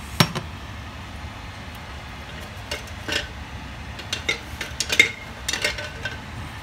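Broth boiling in a pan on the hob, with a sharp knock about a quarter-second in and then scattered light clinks and knocks of cookware against the pan.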